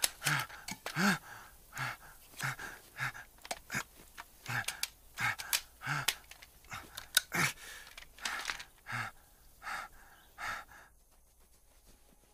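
A wounded man panting and gasping in pain, ragged breaths about twice a second. The breathing stops about eleven seconds in.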